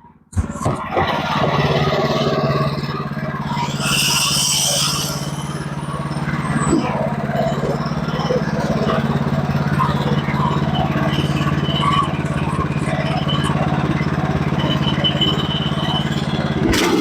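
Sawmill engine running steadily under load while the saw cuts through a log. The sound starts abruptly just after the beginning.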